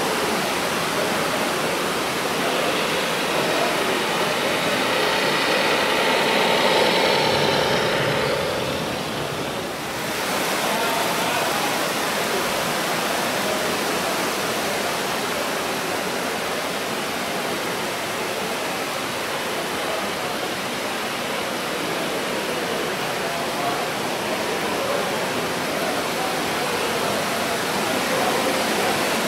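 Steady, even rushing noise with a murmur of voices in it, the hubbub of a crowded hall. A faint set of steady tones runs through it for the first several seconds and stops at about ten seconds in, where the sound briefly dips.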